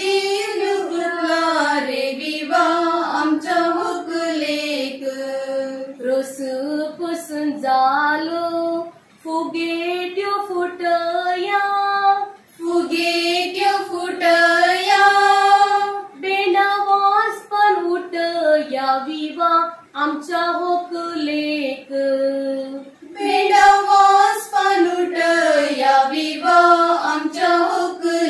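A small group of young women singing a traditional Konkani wedding song together in one melodic line, with short breaths between phrases.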